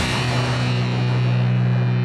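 Title-card music for the show: one held chord rings out, its low notes steady while the brighter top slowly fades away.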